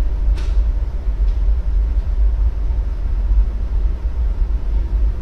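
A steady deep rumble, with a sharp click about half a second in and a fainter click a little after a second.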